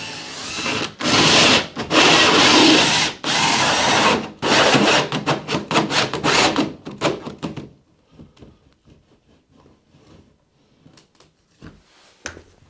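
Power drill with a hole saw cutting a downlight hole, running in bursts with a few short stops over the first eight seconds or so, then stopping; light knocks and scraping follow.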